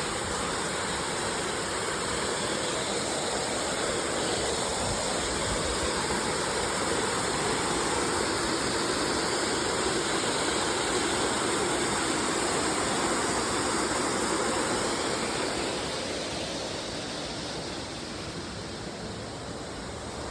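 Waterfall rushing, a steady dense roar of falling water, growing somewhat fainter over the last few seconds.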